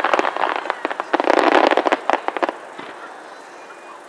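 Aerial firework shells bursting, giving rapid crackling pops in two dense spells over the first two and a half seconds, then quieter.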